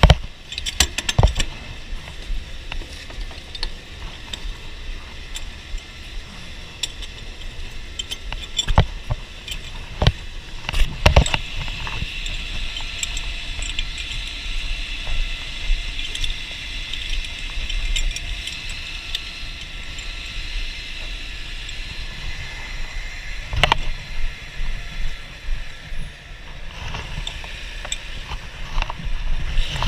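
Fire engine running with a steady high whine and low rumble, with sharp metal clanks and knocks of hose gear being handled: right at the start, around nine to eleven seconds in, and again near twenty-four seconds.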